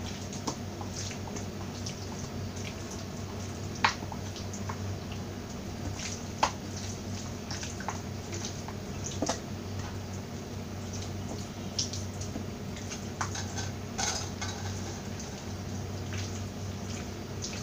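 Raw chicken pieces being mixed by hand into a wet spice paste in a steel plate: soft wet squishing with scattered light clicks and taps against the metal, over a steady low hum.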